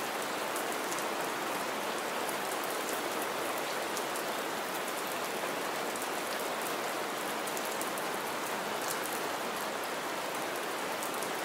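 Steady rain falling on wet ground and into shallow puddles, an even hiss with many separate drops ticking and splashing through it.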